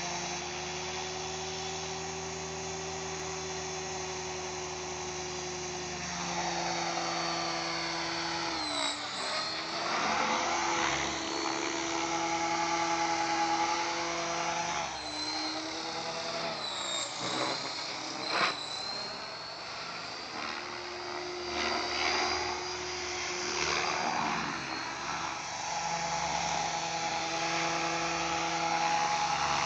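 Blade 500 X electric RC helicopter's motor and rotors whining at a steady pitch, then louder from about six seconds in, the pitch dipping and swinging repeatedly as it is flown.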